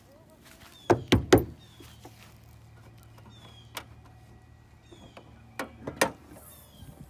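Three loud knocks in quick succession about a second in, then two or three more around six seconds, over a high, short, falling chirp that repeats about once a second.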